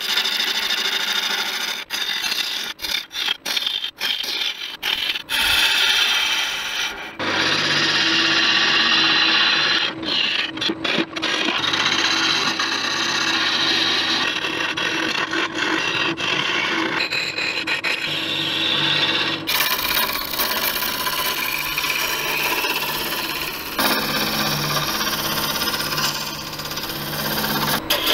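A turning tool cutting a spinning laburnum blank on a Laguna 18/36 lathe: a steady scraping, shearing noise of shavings coming off the wood, over the lathe's faint low hum. In the first few seconds it breaks off briefly several times as the tool lifts from the wood. The sound changes abruptly about a quarter of the way in and again about two-thirds of the way in.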